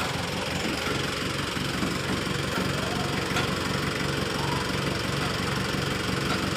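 An engine idling steadily with an even, low chug.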